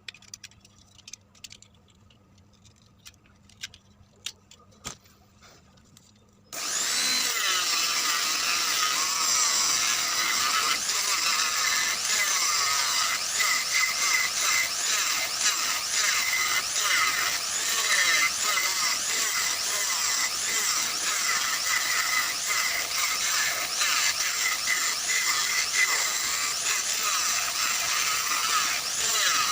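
A few light taps and clicks, then about six seconds in a power tool starts suddenly and runs steadily, cutting or shaping wood.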